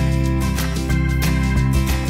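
Upbeat background music with guitar and a steady beat.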